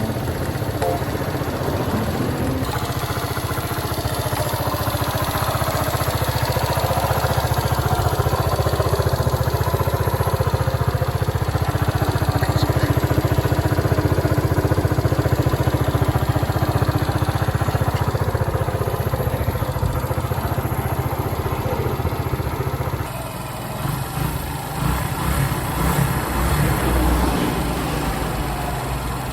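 Small motorcycle engine running steadily. About 23 seconds in, the sound changes abruptly and then runs a little quieter and less evenly.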